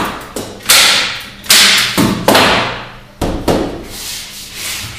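Hand staple gun firing staples through canvas into a wooden stretcher bar: six sharp shots at an uneven pace over about three seconds, then quieter.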